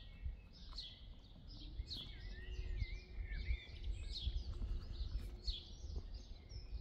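Birdsong: small birds chirping and warbling repeatedly over a low outdoor background rumble, with a faint steady hum from about two seconds in.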